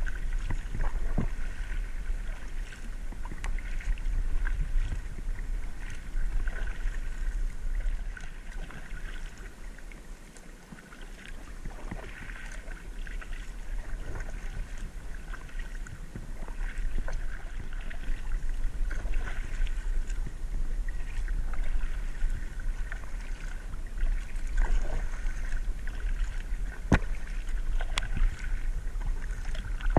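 Kayak paddle strokes dipping and dripping on calm water at an irregular, unhurried pace, over a steady low rumble of wind on the microphone; the strokes ease off briefly about a third of the way in.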